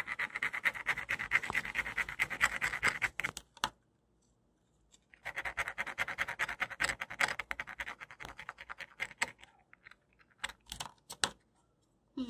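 Wax crayon scribbling across a ridged scallop seashell in quick back-and-forth strokes: two runs of steady scratching with a pause of about a second and a half between them, then a few scattered strokes near the end.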